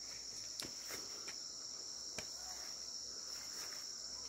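Steady high-pitched insect chorus, cricket-like, with a few faint ticks.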